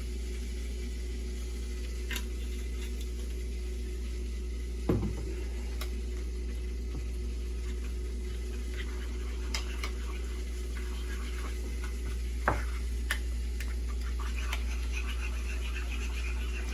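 A few light clicks and knocks of a utensil against a bowl while dill mayonnaise is mixed, two of them louder, over a steady low hum.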